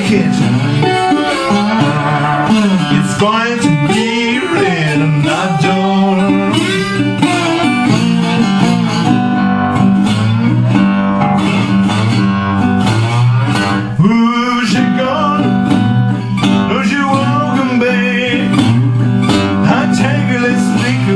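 Acoustic guitar playing a slow blues instrumental passage, with notes that glide and waver.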